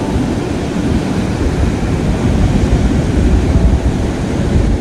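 Wind buffeting the microphone in a loud, gusting rumble, over the wash of sea waves on the shore; it swells a little in the last second and a half.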